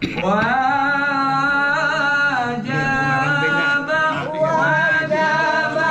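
Unaccompanied chant-like singing: a voice holds long notes with slow, wavering melodic turns, with no instruments.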